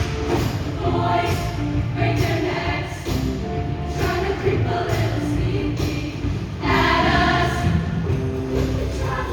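High school show choir singing in harmony over instrumental backing, with sustained held notes.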